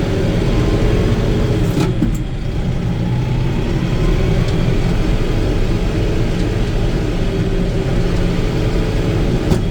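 Farm tractor engine running under way, heard from inside the cab. The engine note drops about two seconds in and then climbs again, with a brief knock or clunk about two seconds in and another near the end.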